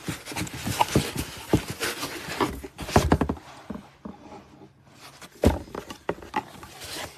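A car amplifier being handled and turned over: a run of knocks and clunks on a hard surface with rustling between them. The loudest knocks come about three seconds in and again about five and a half seconds in.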